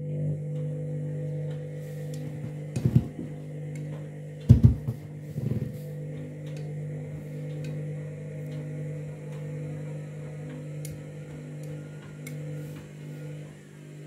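Candy front-loading washing machine's drum motor humming steadily as the drum turns slowly with wet bedding tumbling inside. There are loud thuds about three and four and a half seconds in, and a softer one near five and a half, as the heavy load drops in the drum. The machine is struggling to even out the bedding before it can spin up for the final spin.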